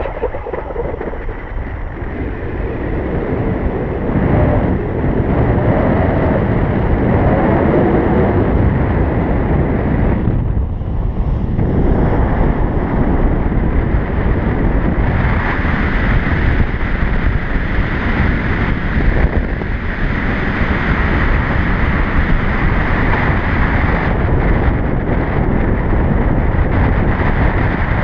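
Wind noise from the airflow of a tandem paraglider in flight, rushing and buffeting over the camera microphone. It is loud and steady, with a brief lull about ten seconds in.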